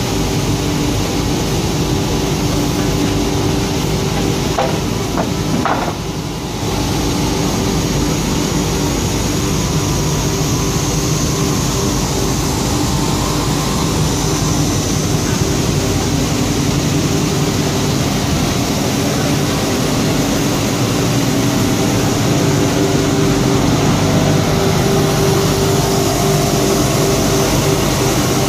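Paper tube sanding and waxing machine line running: steady, continuous machine noise with a constant hum under it. The level dips briefly about six seconds in.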